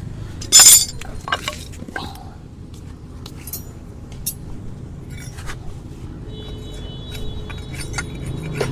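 Hoof-trimming tools working on a horse's hoof: sharp metallic clicks and clinks, with one loud cut about half a second in.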